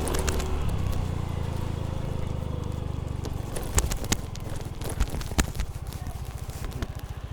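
An engine running steadily, then dropping to a fast, even chugging about three and a half seconds in, with a few sharp clicks.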